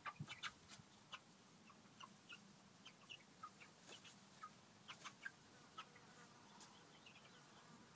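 Three-week-old meat chicks giving faint, scattered short high peeps, irregular and overlapping.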